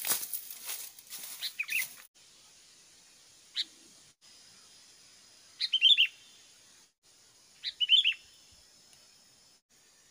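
A small bird chirping: one sharp note about three and a half seconds in, then two quick clusters of chirps near six and eight seconds. A crackling rustle fills the first two seconds, and a faint steady high hiss runs behind.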